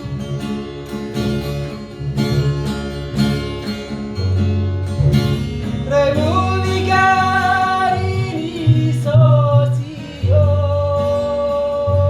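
Song in the Serui (Yapen, Papua) style: strummed acoustic guitar over a steady pattern of deep bass notes. About halfway through a singer comes in with long held notes.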